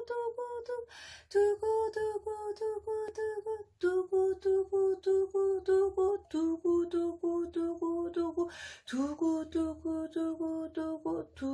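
Ocarina playing a descending scale in quick repeated tongued eighth notes, double-tongued "du-gu du-gu". Each note is repeated about eight times before stepping down, for about five steps. There are quick breaths about a second in and near the end.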